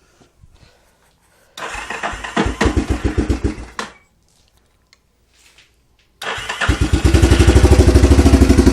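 2004 Yamaha Warrior 350 quad's single-cylinder four-stroke engine being started cold. It sputters for about two seconds and stops. A few seconds later a second attempt catches and runs with a steady, even pulsing beat.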